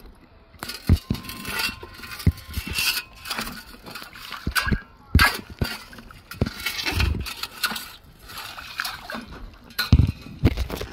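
A metal sand scoop digging into gravel and sand under shallow water: irregular splashing and sloshing with stones scraping in the scoop, and several sharp knocks.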